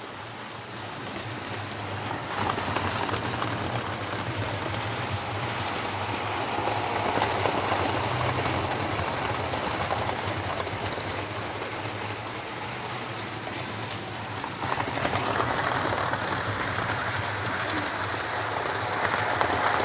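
Model trains running on the layout's track, a Class 67 locomotive with its coaches among them: a steady running noise from motors and wheels on rail, getting louder about 15 seconds in.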